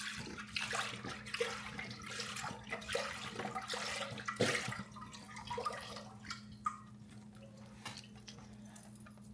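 Chicken broth being poured into a cooking pot, splashing unevenly, thinning out after about six seconds.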